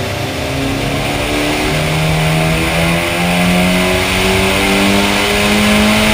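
Turbocharged four-cylinder of a 2005 Mitsubishi Lancer Evolution VIII RS at full throttle on a chassis dyno, its pitch rising steadily as it climbs through the revs. The water/methanol injection line has been opened and the failsafe is cutting boost, so the engine pulls on at reduced boost.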